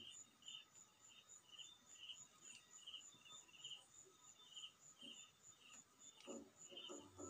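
Near silence with faint insect chirping repeating in an even rhythm: a high pulse several times a second over a lower trill about twice a second.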